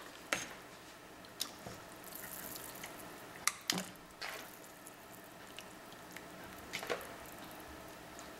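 Pieces of raw chicken dropped one at a time into a pot of hot water: several small splashes and plops, the loudest about three and a half seconds in, over a faint hiss from the heating water.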